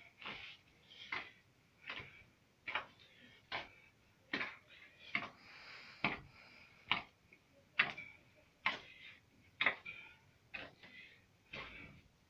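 Fists punching and kneading a stiff yufka dough in a plastic tub: a steady run of dull knocks, a little more than one a second.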